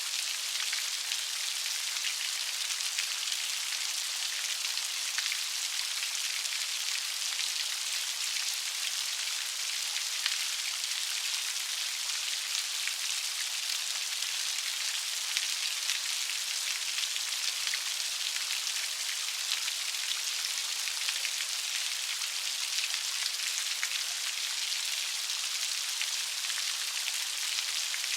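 Light rain falling steadily, a soft even hiss of many fine droplet patters with no thunder.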